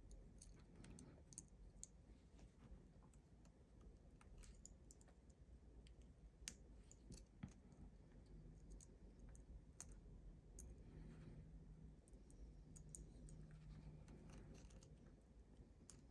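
Faint, irregular small clicks and taps from fingers handling a laptop's M.2 Wi-Fi card and its antenna cable connectors, with the sharpest click about six and a half seconds in.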